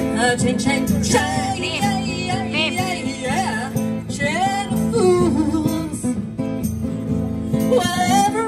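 Live band playing: a woman singing over acoustic guitar.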